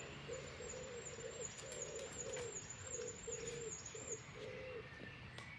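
A bird giving a run of low, hollow cooing notes, about two a second, that stops about five seconds in. A thin, high wavering whistle runs above it until a little before the cooing ends.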